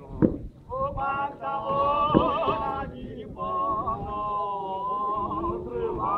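Men's voices of a Zion Christian Church Mokhukhu group chanting a hymn together in two long held phrases. A couple of short sharp thumps come through, one near the start and one about two seconds in.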